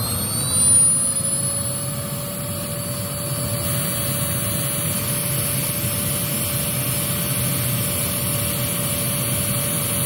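Hoover Z400 upright vacuum cleaner's motor finishing its spin-up after being switched on, its whine rising for about the first second and then running steady, with the brush roll off.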